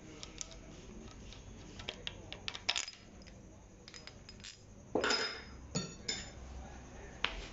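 Loose steel engine parts clinking and clicking as they are handled, with a louder metallic clatter about five seconds in followed by a couple of brief ringing clinks.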